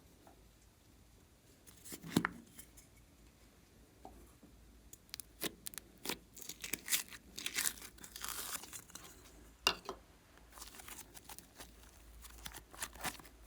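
Irregular crinkling and crackling with a few sharp clicks, from hands working slime and makeup. A loud click comes about two seconds in, a denser run of crackles follows in the middle, and another sharp click comes near ten seconds.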